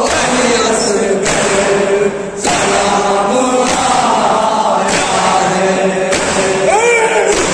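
Group of men chanting a noha, an Urdu mourning elegy, in unison, with sharp chest-beating (matam) strikes keeping time about once every 1.2 seconds.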